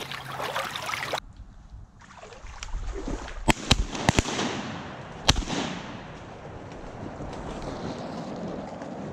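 Volley of five shotgun shots at passing ducks: two quick pairs, then a single shot about a second later. Wind noise on the microphone follows.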